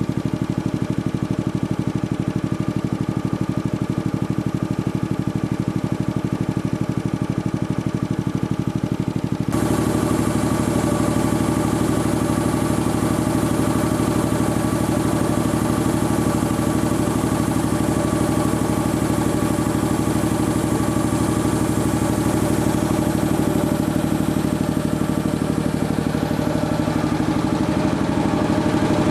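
Sperre HV2/200 piston air compressor running steadily. About nine and a half seconds in, the sound changes suddenly and gains a much stronger hiss and brighter upper tones, then runs on steadily.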